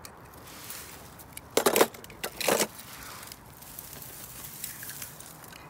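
Grass and dry leaves rustling and crackling as a hand reaches in among them, in two short bursts a little under two seconds in and about half a second later, with a few fainter rustles after.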